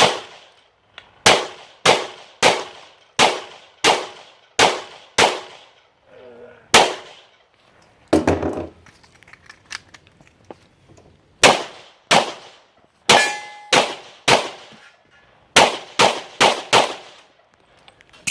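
Pistol fired in quick strings of shots, roughly half a second to a second apart, with pauses between strings; each shot has a sharp ring to it like steel being struck. A short rustle comes about eight seconds in.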